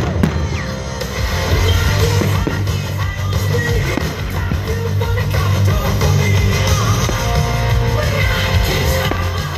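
Loud rock music with guitar and singing over a steady bass line.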